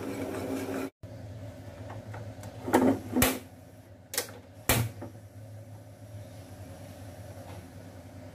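Cookware being handled at a gas stove: four sharp knocks and clicks, roughly half a second to a second apart, as a nonstick wok is set down and handled, over a low steady hum.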